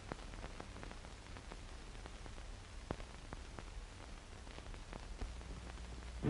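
Faint hiss and low hum with scattered clicks and pops, typical of the surface noise on an old optical film soundtrack.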